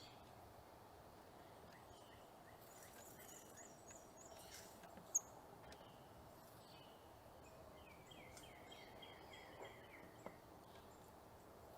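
Small songbirds chirping faintly over a steady background hush: scattered high chirps, one sharp chirp about five seconds in, and a quick trill of rapidly repeated notes around eight to nine seconds in.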